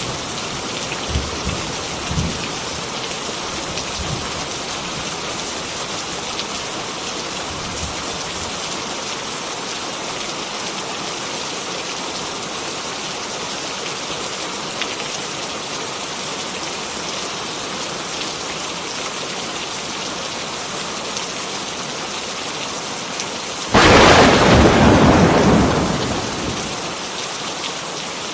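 Heavy rain falling steadily, with a few faint low rumbles of distant thunder in the first seconds. Near the end a sudden loud thunderclap breaks in and dies away over a couple of seconds.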